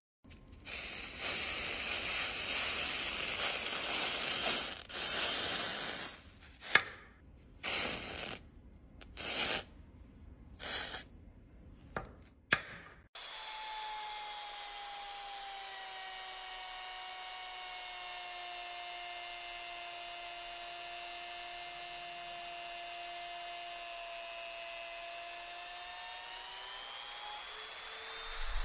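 First, a loud rough scraping noise as a hand works material in a bowl: steady at first, then in about five short bursts. Then a handheld rotary tool runs with a steady whine as its bit carves into a wax crayon, the pitch rising near the end.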